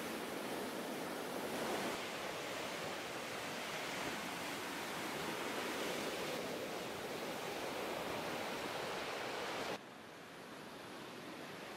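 Sea surf breaking and washing over a pebble beach: a steady rushing noise that swells and ebbs. Near the end it cuts off suddenly to a quieter background hiss.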